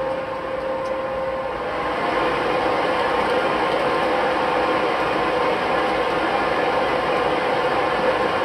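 Lottery draw machine running steadily as it mixes its 49 coloured numbered balls, growing a little louder over the first two seconds.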